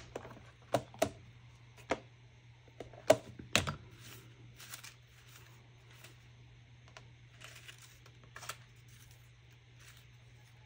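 Small objects being handled on a tabletop: about half a dozen sharp clicks and taps over the first four seconds, the loudest about three seconds in, then faint scratching and rustling.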